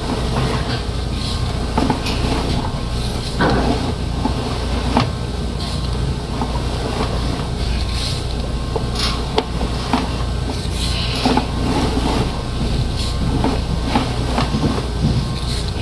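Steady low motor hum with irregular knocks and clanks throughout.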